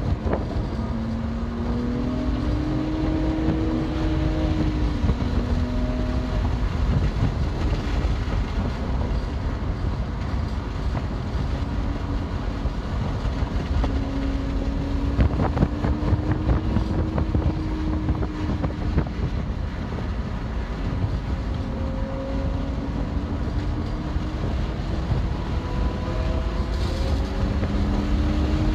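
BMW M2 Competition's twin-turbo straight-six driven hard, its pitch climbing and dropping with the revs several times, over a steady low rumble of road and wind noise.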